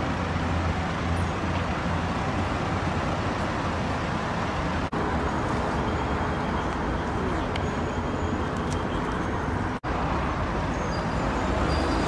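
Steady street traffic noise, cut off for an instant twice, about five and ten seconds in.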